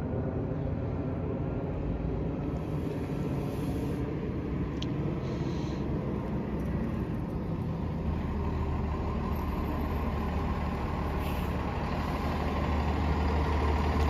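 Fairfax Connector transit bus pulling in to the stop, its engine rumble growing louder as it comes close, strongest in the last few seconds.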